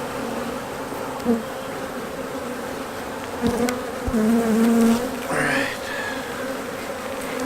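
Honey bees buzzing around an open hive: a steady drone whose pitch wavers up and down as bees fly close past. A couple of light knocks come about three and a half and four seconds in.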